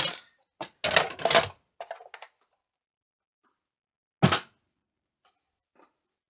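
Clear plastic cutting plates of a Sizzix Big Shot die-cutting machine being lifted apart and handled, clicking and clattering, with a short rattling scrape about a second in. A single sharp knock comes about four seconds in.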